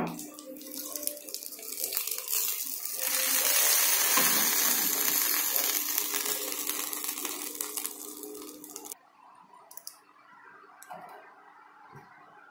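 Hot oil tempering of mustard seeds, curry leaves and dried red chili sizzling as it is poured onto chutney. The sizzle swells about two seconds in, fades slowly and stops abruptly about nine seconds in.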